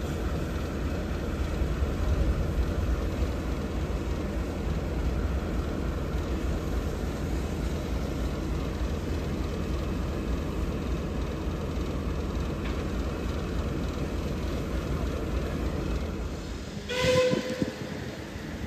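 Caledonian Railway 812 Class steam locomotive running slowly, with a steady low rumble. Near the end it gives one short whistle blast.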